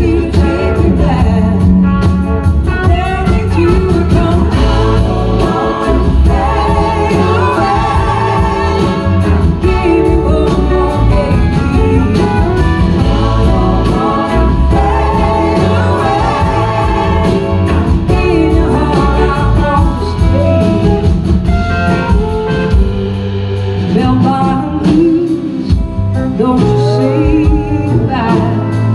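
Live blues-rock band playing a slow song, a woman singing lead over electric guitars, bass and drums.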